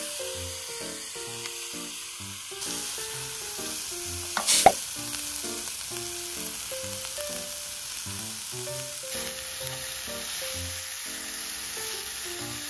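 Bean sprouts and cabbage sizzling in oil on a fluororesin-coated iron griddle, a steady frying hiss, with one sharp click about four and a half seconds in. A background tune runs underneath.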